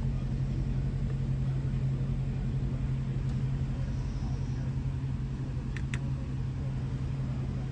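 Steady low hum and rumble inside an Audi S6 cabin. A quick double click, from the MMI control-knob buttons being pressed, comes about six seconds in.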